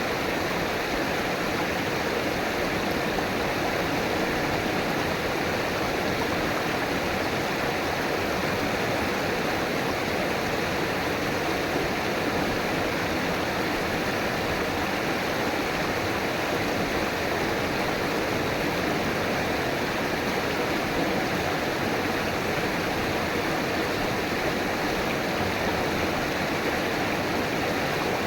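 River water flowing and rushing over rocks, a steady, even rush without pauses.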